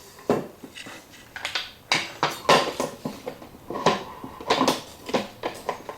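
Washing machine door parts, the plastic door frame and the glass door bowl, being handled and pressed together: a run of irregular knocks and clacks, one with a short ring.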